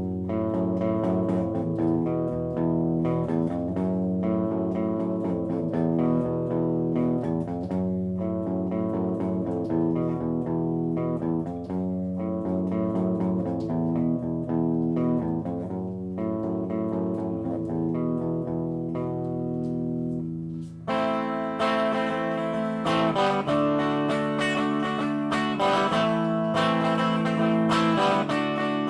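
Electric guitar played through a Line 6 POD Pro amp modeler: a mellow clean tone playing picked notes and chords, which changes abruptly to a much brighter, fuller tone about three quarters of the way through.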